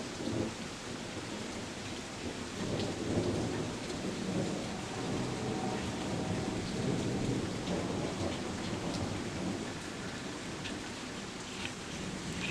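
Rolling thunder rumbling through a thunderstorm over steady rain, swelling after a couple of seconds and easing off near the end, with scattered drops ticking close by.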